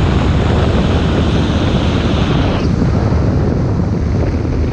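Wind rushing over an action camera's microphone on a moving Suzuki GSX1200 Inazuma motorcycle, with the bike's engine running underneath. The higher hiss eases a little over halfway through.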